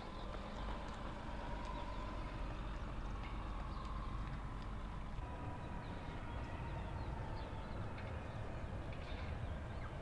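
Steady low rumble of road traffic passing below, with faint scattered ticks.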